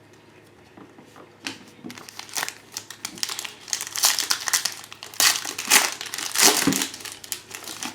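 Foil trading-card pack wrapper crinkling and tearing as a pack of 2016 Panini Prizm football cards is opened. It starts about a second and a half in and grows louder toward the end.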